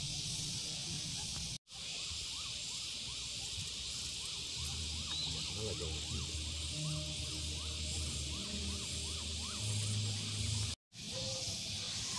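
Steady high-pitched insect drone outdoors, with faint repeated short chirps and a low hum in the middle. The sound cuts out completely for a moment twice.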